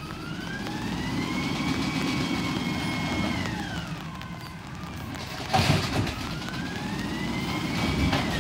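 Peterbilt 320 garbage truck with an Amrep automated side-loader body working its lift arm. The engine and hydraulics give a whine that rises, holds and falls, then comes back near the end. A loud clank about five and a half seconds in fits the cart being dumped into the hopper.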